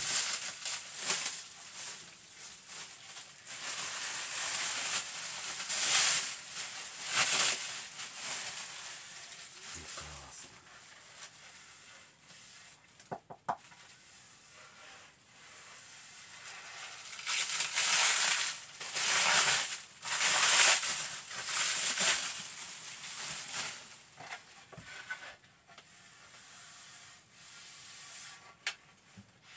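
Plastic packaging and bubble wrap crinkling and rustling in irregular bursts as it is pulled off a longboard deck, with a few sharp clicks about halfway through.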